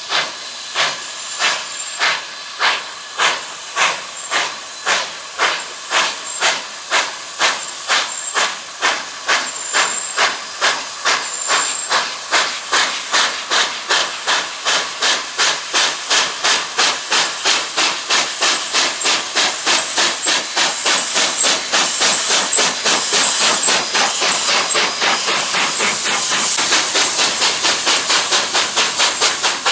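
SNCF 141 R 1126, a two-cylinder 2-8-2 steam locomotive, working hard with sharp, even exhaust chuffs from its chimney. The beats quicken steadily from about two a second to about three a second as it gathers speed.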